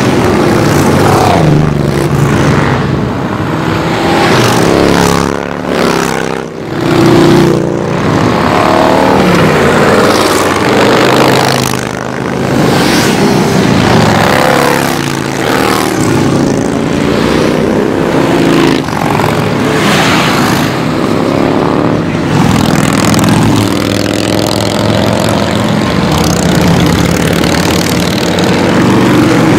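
A steady stream of cruiser motorcycles riding past one after another. Their engine notes overlap and rise and fall in pitch as each bike goes by.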